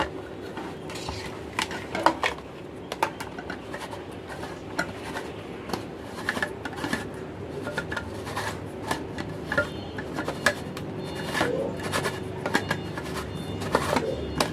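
Irregular clicks, taps and rattles of a plastic camping LED lantern's casing and parts being handled and fitted back together, over a faint steady hum.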